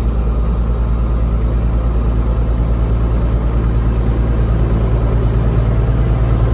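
Old dump truck's engine idling steadily with a deep, even hum while the emptied dump bed lowers.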